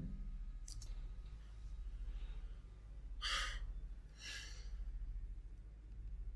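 A person breathing close to the microphone: two short breaths about three and four seconds in, with a faint click near the start, over a steady low hum.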